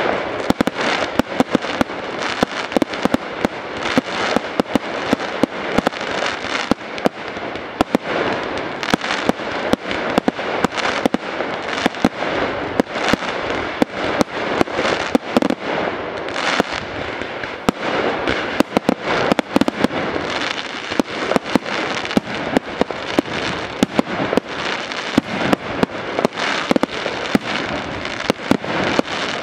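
Fireworks display in full barrage: aerial shells and comets bursting in a rapid, unbroken run of sharp bangs, several a second, over continuous dense crackling.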